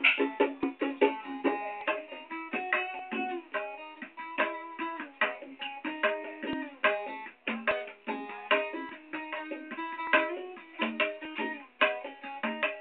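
Plucked string instrument played live in quick runs of separate notes.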